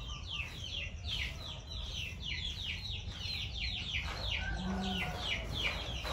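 Chicks peeping in a rapid, continuous run of short falling chirps, with a hen giving a short low cluck a little past the middle.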